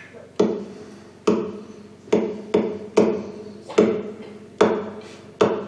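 Acoustic guitar strummed in slow chords, about one stroke a second, each chord ringing out before the next: the opening bars of a song before the singing comes in.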